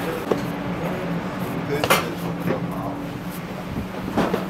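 Commercial kitchen ambience: a steady low equipment hum with a few sharp clinks of metal pans and utensils, one about two seconds in and another near the end.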